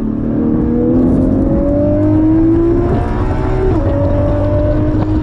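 Porsche 718 Cayman GT4's 4.0-litre flat-six with a modified exhaust, heard from inside the cabin, accelerating hard with its pitch climbing steadily. Late on a quick upshift drops the pitch, and it starts climbing again.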